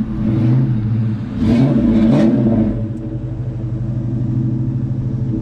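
Motorcycle engine running steadily, with two short revs about one and a half and two seconds in.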